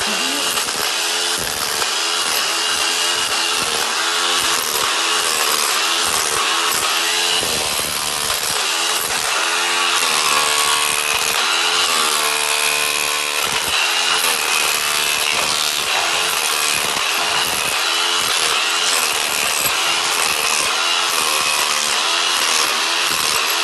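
A power tool running continuously, its motor pitch wavering up and down with the load.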